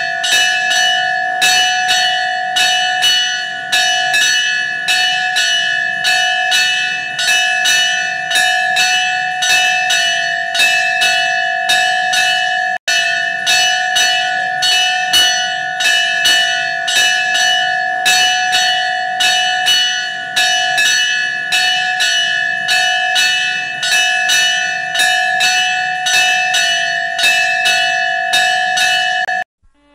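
Temple bell struck rapidly and without pause, each stroke renewing a steady metallic ring. There is a momentary break about thirteen seconds in, and the ringing cuts off just before the end.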